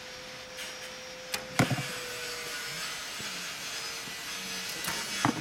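Recurve bow shot: a sharp snap as the string is released about a second and a half in, then another sharp knock near the end, over a faint steady hum.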